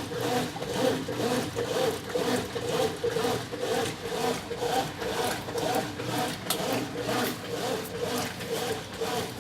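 Brastemp 9 kg top-loading washing machine agitating a load in a high water level, the agitator swishing the clothes and water back and forth in a steady churning rhythm of about two strokes a second.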